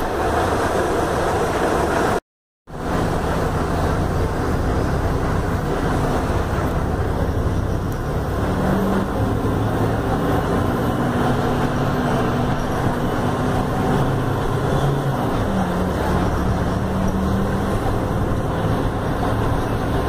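Mercedes-Benz OF-1519 city bus heard from inside the cabin: its front-mounted diesel engine running under way with road and traffic noise, the engine note shifting as the bus moves through traffic. The sound drops out completely for about half a second just after two seconds in.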